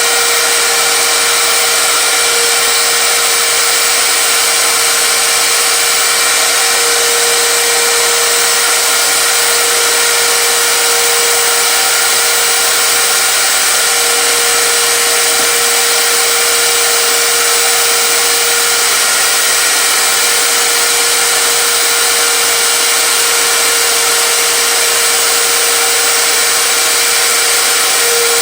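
A power tool's electric motor running continuously at a constant high speed, with a steady tone over a loud even noise.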